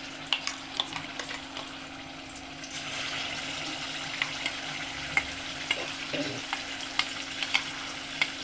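Ground tomato, onion, garlic and ginger paste frying in hot oil in a kadai: a steady sizzle with frequent sharp pops and crackles, growing louder about three seconds in.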